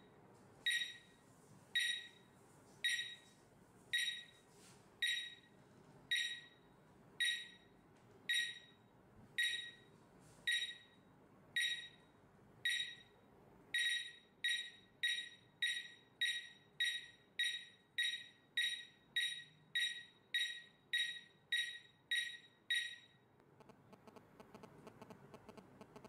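Visonic wireless alarm panel sounding its exit-delay beeps: short, high beeps about once a second, speeding up to about two a second for the last ten seconds or so, then stopping as the system arms in away mode.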